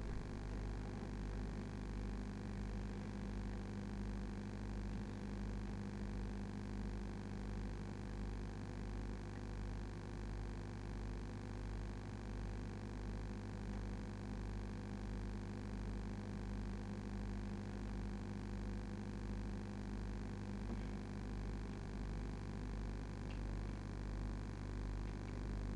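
A steady low hum with a faint, slow pulsing in the bass. No music or voices.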